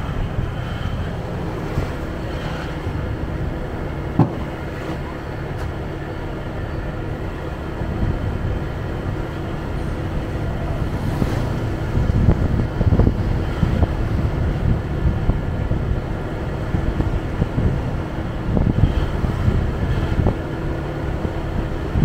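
Motorcycle engine running at low street speed, with wind buffeting the microphone in gusts, heavier in the second half.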